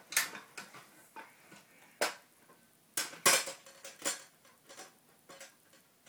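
Small toys being handled and knocked against things inside a small cupboard: a string of sharp knocks and clatters, the loudest about two and three seconds in.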